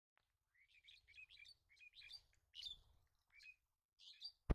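Small birds chirping faintly in a quick run of short, high chirps. Near the end comes one sharp click.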